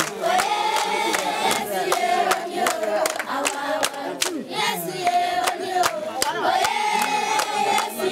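A group of children singing a praise song together, with steady hand clapping.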